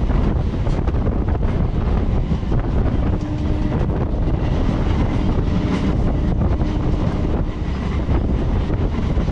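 Suburban electric multiple-unit (EMU) train running at speed, recorded from outside the carriage side: heavy wind rushing over the microphone on top of the train's running noise. A faint steady hum comes and goes in the middle.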